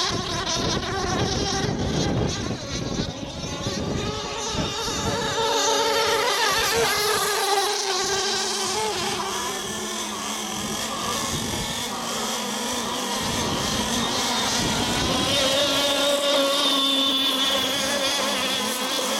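Radio-controlled racing boat's motor running at speed across the water, its pitch wavering up and down as it runs.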